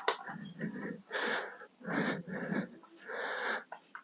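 Breathing: three noisy breaths about a second apart, each about half a second long.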